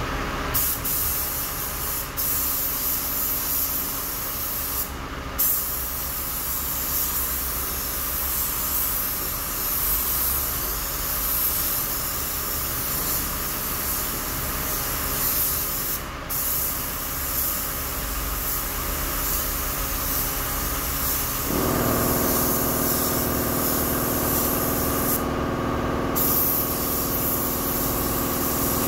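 Compressed-air paint spray gun hissing steadily as the colour coat goes onto a primed bus panel, the hiss cutting out briefly a few times. About two-thirds of the way through, a steady machine hum with a low drone starts up and carries on under the hiss.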